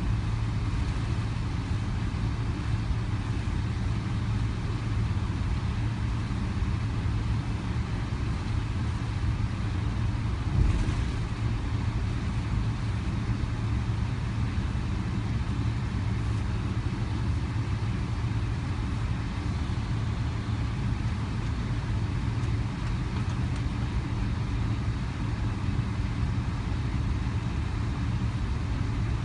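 Steady low rumble and hum of a Boeing 777 taxiing with its engines near idle, heard inside the passenger cabin, with one brief thump about ten seconds in.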